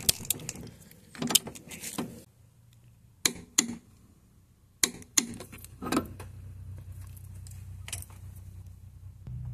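Torque wrench and socket working a car's fuel filter banjo bolt up to 50 ft-lb: a scatter of sharp metallic clicks and clinks as the bolt is tightened and the wrench is lifted off.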